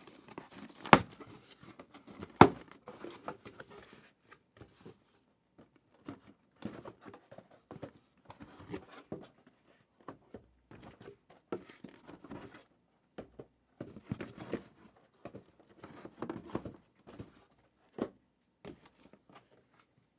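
Plastic shrink wrap being torn and crinkled in irregular bursts as sealed trading card boxes are opened. Two sharp knocks come about one and two and a half seconds in.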